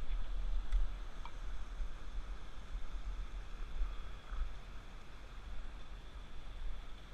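Low, uneven rumble of wind and movement on a worn camera's microphone as the wearer clambers over streamside boulders in waders, over a faint steady hiss, with a couple of light ticks about a second in.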